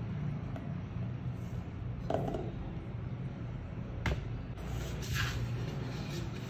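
Hands moving cornstarch-coated raw potato strips about on a baking tray: a few light knocks and scrapes, with one sharp knock about four seconds in, over a steady low hum.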